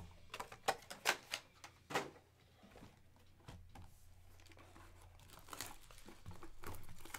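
Cardboard trading-card boxes being handled and opened: a few sharp crinkles and scrapes of cardboard packaging in the first two seconds, then quieter rustling and sliding.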